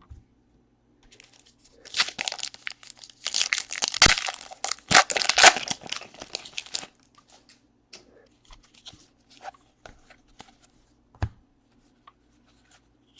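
A trading card pack wrapper being torn open and crinkled for about five seconds, followed by light clicks and rustles of cards being handled.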